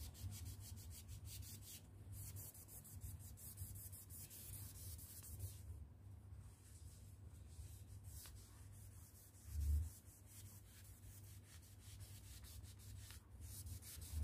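Cloth scrubbing back and forth on a textured painted wall, faint, quick repeated rubbing strokes, wiping crayon marks off with alcohol. A soft thump about two-thirds of the way through.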